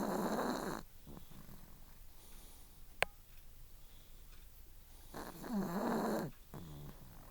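Chihuahua snoring in her sleep: two big snores about five seconds apart, each lasting about a second and followed by a short fainter breath. A single sharp click sounds about three seconds in.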